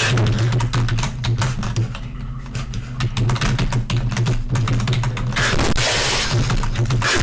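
Fast, hard computer keyboard typing: a dense, irregular clatter of keystrokes over a steady low hum.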